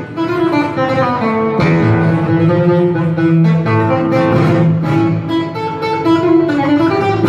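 Solo classical guitar playing a tango, picking a melody over bass notes.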